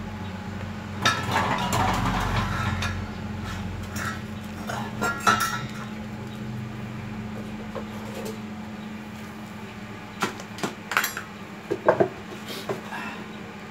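Handling clatter and knocks of a wooden plank being fetched and set down on a miter saw's table against its fence, with a stretch of clattering about a second in and a cluster of sharp knocks near the end. The saw is not running.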